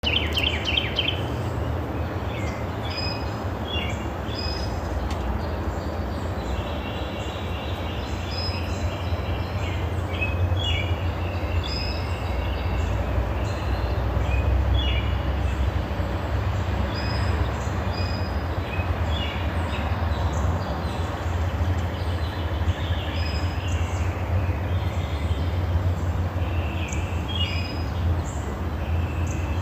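Many birds chirping and calling in short, repeated notes over a steady low rumble.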